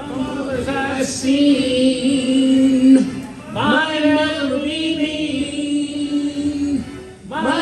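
Live singing in long, steady held notes, each lasting two to three seconds, with short breaks between them.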